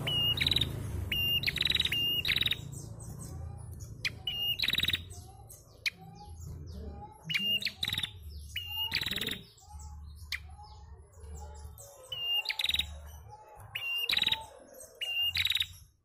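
Caged female prenjak calling over and over: each call a brief clear whistled note followed at once by a loud buzzy rattle, often given in quick pairs.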